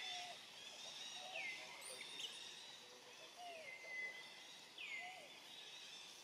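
A bird calling repeatedly, each call a quick downward sweep that settles into a held high note, roughly every second and a half, faint over steady outdoor background noise.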